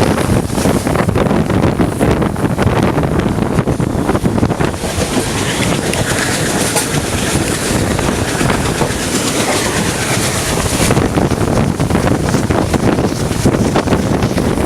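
Passenger train rolling past at speed, its wheels clattering steadily over the rail joints.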